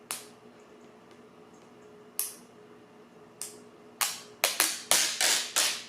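Handling sounds from a phone and its screen-protector packaging: three sharp clicks spaced out, then near the end a quick run of five or six louder rustling, scraping noises.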